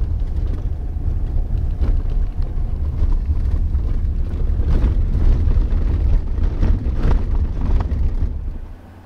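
Truck driving slowly over a rough dirt road, heard from inside the cab: a steady low rumble of engine and tyres with scattered knocks and rattles as it bumps along. The sound drops away suddenly near the end.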